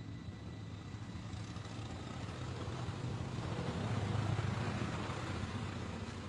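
Low engine rumble of something passing at a distance, growing louder to a peak about four seconds in and then fading.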